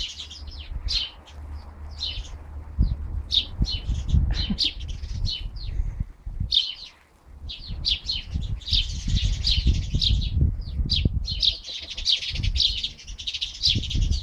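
Small songbirds chirping, a quick run of short high chirps with a brief lull about seven seconds in, over a low rumble.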